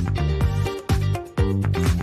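Background electronic dance music with a steady beat and a pitched bass line.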